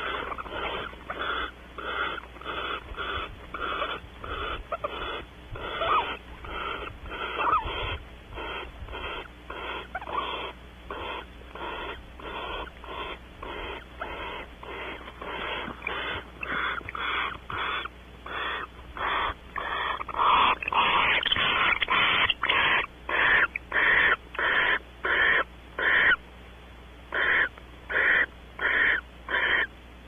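Barn owl giving a long run of rasping, hissing snore calls, about two a second. Near twenty seconds one call is longer and louder, and after that the calls come louder and a little slower, with one short pause.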